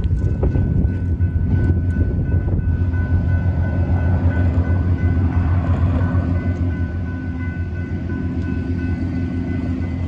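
Cars and a pickup truck driving over a railroad grade crossing, over a steady low engine drone.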